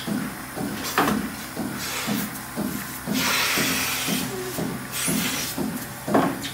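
Milking machine pulsators pulsing in a steady rhythm, about two to three beats a second, as the automatic milkers run on the cows. A loud hiss of air from the milking vacuum comes in for about a second and a half near the middle, and there are two sharp knocks, one about a second in and one near the end.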